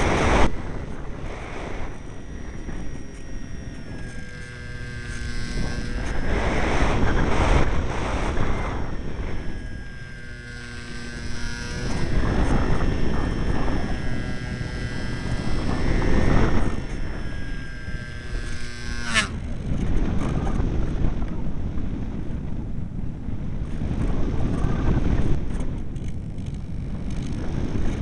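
Strong wind buffeting the microphone in repeated gusts that swell and fade every few seconds. Over it runs a steady whine made of several tones, which ends with a sharp click about two-thirds of the way through.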